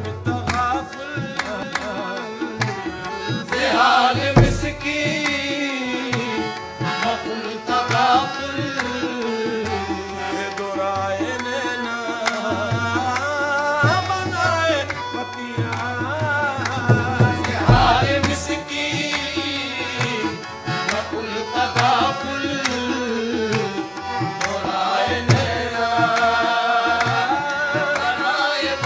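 Live qawwali music: male voices singing over harmoniums, with a hand-drum beat throughout.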